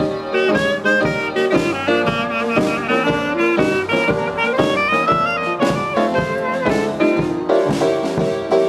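Live small jazz band playing, with a clarinet carrying the melody close by over a drum kit keeping time.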